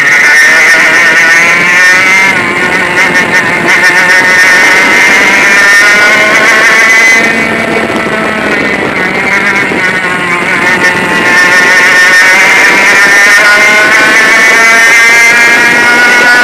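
100cc two-stroke kart engine at racing speed, its pitch climbing and falling with the throttle: it drops about seven seconds in as the kart slows for a corner, then climbs again as it accelerates out.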